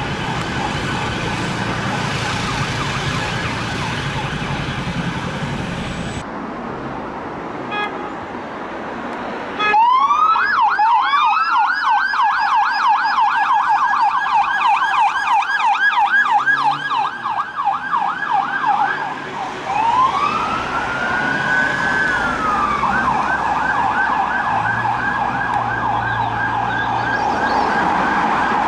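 UK police car sirens: a rising wail turns into a fast yelp, changes to one slow wail rise and fall about two-thirds of the way in, then goes back to the yelp. The first third holds a steadier street and siren sound before a cut.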